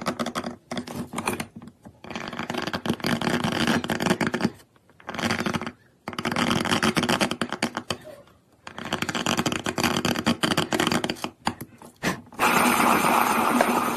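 Hand engraving tool scraping grooves into a small black stone square held in a seal-carving vise: repeated scraping strokes of one to three seconds each with short pauses between them. Near the end a steadier, louder scraping sound runs without a break.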